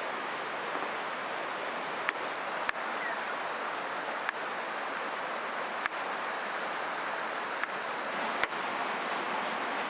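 Steady rush of a flowing river, with sharp pops from a crackling campfire every second or two.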